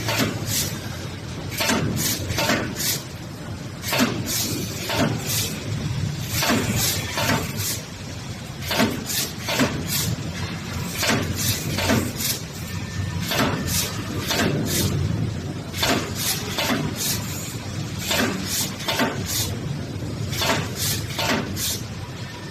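Multi-head wire mesh spot welding machine at work: repeated sharp metallic clacks, irregular at about one or two a second, over a steady low machine hum.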